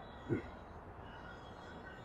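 Steady low outdoor background noise with faint distant voices, broken by one brief low thump about a third of a second in.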